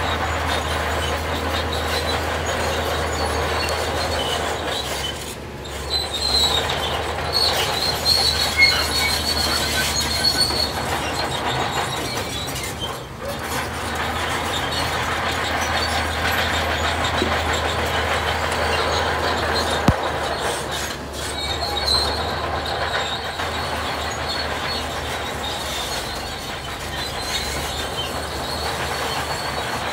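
Tracked heavy machine working: its diesel engine runs with a steady low drone under a continuous grinding clatter of steel tracks. A high-pitched squeal comes and goes over it.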